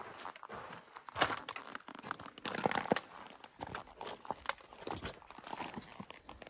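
Irregular crunching footsteps of a hiker walking on gritty canyon ground, with rustling between the steps.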